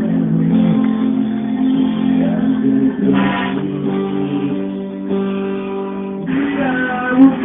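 Live band music: a guitar-led instrumental passage with strummed and plucked guitar over sustained notes.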